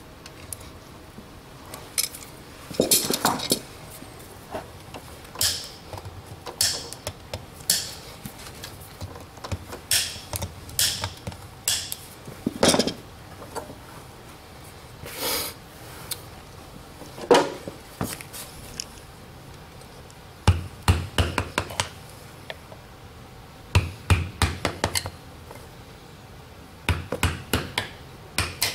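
Farrier's steel hand tools working the horseshoe nails in a shod hoof. First come scattered single sharp metal clicks and clinks, then three bursts of quick hammer taps in the last third, against a small tool held at the nail line.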